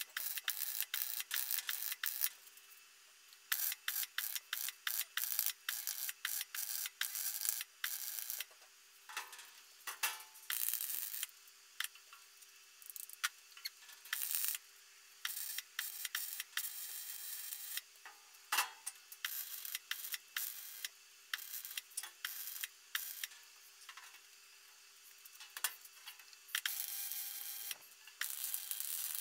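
Arc welding of thin mild-steel sheet onto a steel frame: a harsh crackle in short runs and quick tacks, stopping and starting every second or so.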